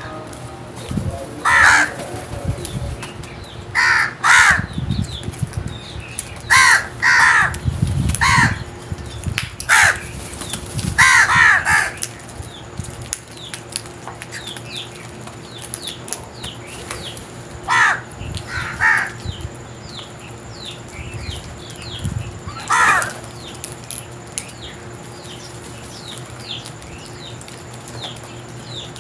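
Crows cawing: about a dozen short, harsh caws, often two in quick succession, with longer pauses in the middle and near the end. Faint high chirps are heard in the gaps.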